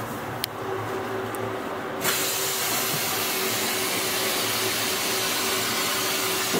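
Steady hum and whine of a standing double-deck railway coach, joined about two seconds in by a sudden loud, steady hiss of air.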